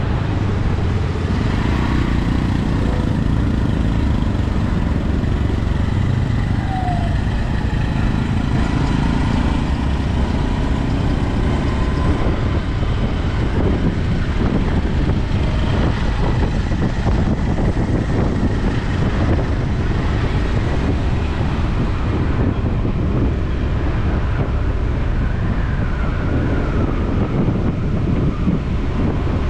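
Steady city street traffic heard from a moving bike: a continuous rumble of vehicle engines and road noise.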